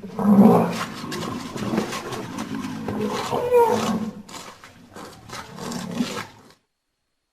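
Rhinoceros calling: a run of deep, pitched calls, loudest about half a second in and again around three and a half seconds, that cuts off suddenly about six and a half seconds in.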